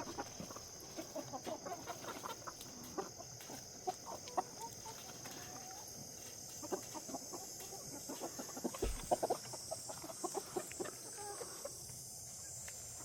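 Laying hens clucking, many short scattered clucks from the flock as they feed on tossed garden scraps.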